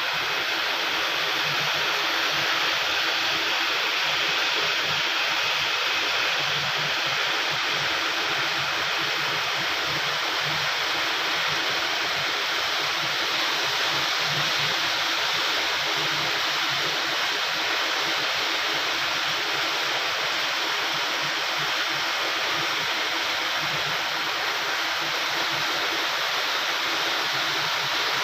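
Automatic capsule printing machine running: a steady, even rushing hiss with a faint constant hum beneath it.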